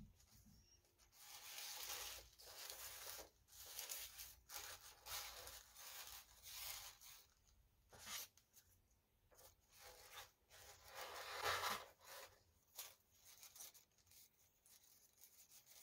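Tissue paper rustling and crinkling in a series of short bursts as it is folded and wrapped around a small kraft-paper box; the loudest rustle comes about eleven seconds in.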